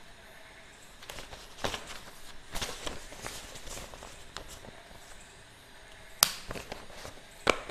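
Sheets of paper being handled and rustled, with a few short sharp clicks; the loudest click comes about six seconds in.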